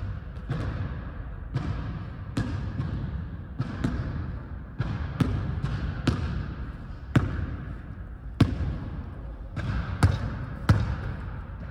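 Basketball being dribbled on a hardwood gym floor, bouncing about once a second, each bounce echoing through the hall. The loudest bounces come near the end.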